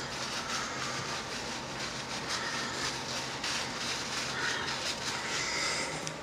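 Steady low hum with an even hiss from a running motor or fan, with a few light knocks from the phone being handled.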